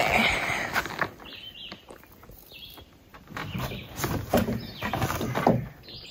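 Footsteps crunching and thudding on a rocky dirt trail, with the rustle of a backpack and a canoe carried on the shoulders. A few short bird chirps come through in the quieter middle.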